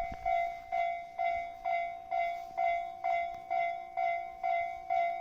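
Japanese level-crossing warning bell ringing, a steady electronic 'kan-kan' ding repeating a little over twice a second, sounding while a train approaches or passes.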